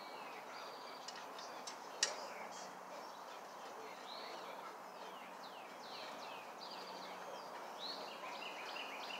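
Light metallic clicks of a hand socket ratchet tightening the bolts of a mower deck spindle, with one sharper click about two seconds in. A bird calls in the background with repeated short arched chirps.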